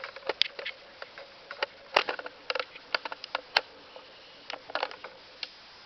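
A run of irregular sharp clicks and light knocks, like handling noise, with the loudest click about two seconds in.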